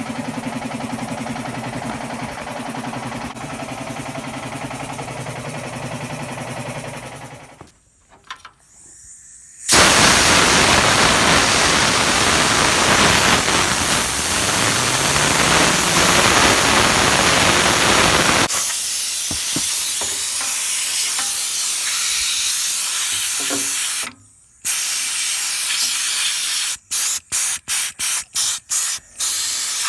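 Compressed air sprayed through a dusty computer: a loud continuous blast of hiss lasting about eight seconds, a softer stretch, then a run of short quick bursts near the end. Before the spraying, a steady pitched hum plays for about seven seconds.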